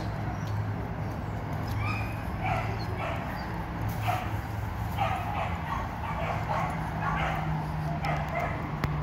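Dogs barking and yipping in a rapid run of short barks, over a steady low hum.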